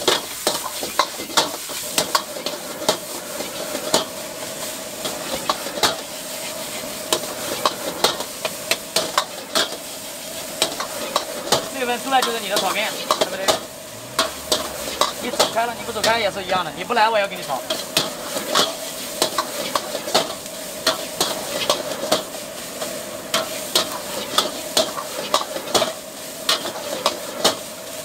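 Metal wok ladle clanking and scraping against a carbon-steel wok in quick, irregular strokes while egg fried rice sizzles steadily over a high gas flame.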